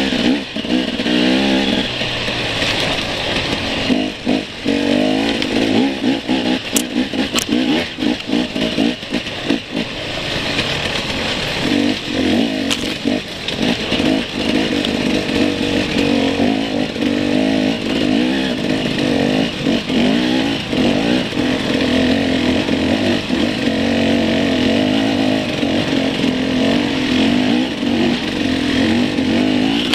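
Enduro dirt bike's engine heard from on board as it is ridden along a rough trail, revving up and down with the throttle, with brief throttle-offs about four and nine seconds in.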